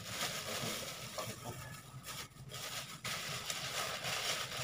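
Rustling and crackling as rice and crackers are handled on a paper food wrapping, in two long stretches with a short break in the middle.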